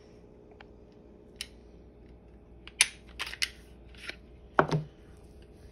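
Glock 23 pistol being field-stripped by hand: sharp metallic clicks and clacks of the slide and takedown lever as the slide is worked and taken off the polymer frame. There are about six clicks in all, the sharpest about three seconds in and a heavier clack just before five seconds.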